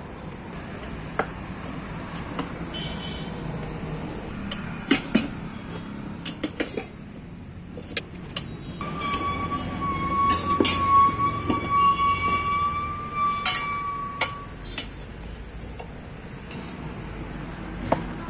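Steady background noise with scattered sharp metal clinks and knocks, like tools striking a wheel rim. About nine seconds in, a steady high tone starts, holds for about six seconds, then stops.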